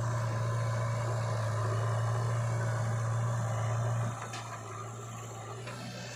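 Engine running steadily with a low, even hum that drops in level about four seconds in.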